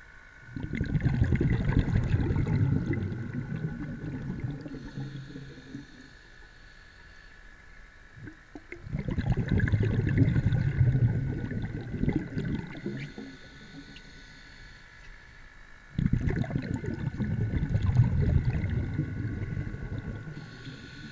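Underwater recording: three long bursts of low rumbling, each about five seconds long and coming about every seven to eight seconds, over a faint steady high tone.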